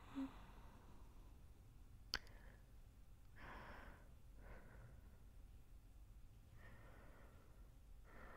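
A few faint, slow breaths of a person drifting off to sleep, with one sharp click about two seconds in.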